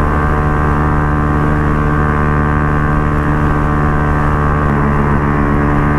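Benelli RFS150i motorcycle engine running through an aftermarket Racing Line exhaust while riding at a steady speed, its note holding level with a slight change about three-quarters of the way through.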